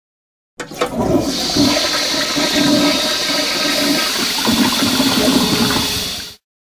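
Toilet flushing: a rush of water that starts with a few knocks under a second in, runs for about six seconds, and cuts off abruptly near the end.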